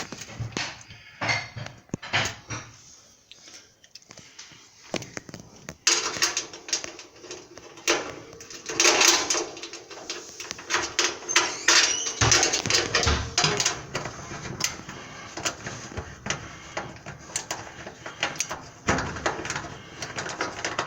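Irregular clicks, knocks and rattles of dryer parts being handled and worked on by hand. The clatter becomes denser and louder about six seconds in.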